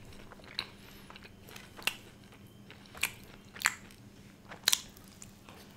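A person chewing food close to the microphone, with about five sharp mouth clicks and smacks spread through, the loudest about four and a half seconds in.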